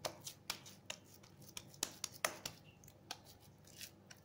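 Hands patting and pressing raw chicken chapli kabab mince into a flat patty: an irregular run of short pats, about three a second.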